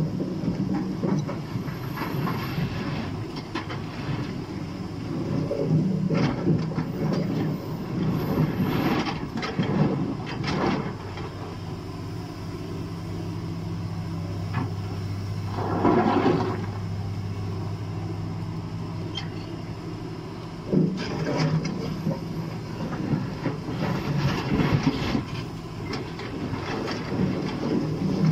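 Liebherr 944 crawler excavator's diesel engine running steadily while the bucket digs and dumps rock, with stones clattering and scraping in repeated bursts. The loudest rush of falling stone comes about halfway through.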